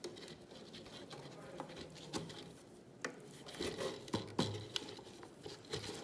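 Faint rustling of jute twine and small irregular crinkles and taps of a plastic water bottle as the twine is wound and tied around its neck, busier in the second half.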